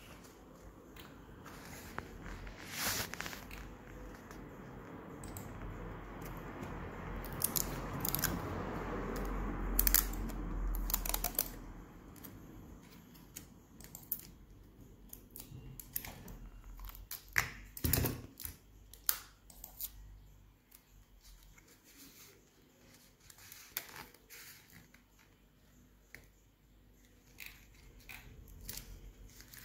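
Plastic drinking straws and a cardboard band being handled: a rustle that swells for the first ten seconds or so and then dies away, followed by scattered clicks and taps of the straws.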